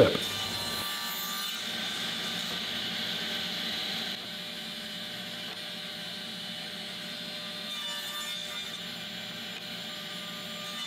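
Table saw running steadily while 45-degree miter cuts are made on the ends of picture-frame boards. The sound eases slightly about four seconds in.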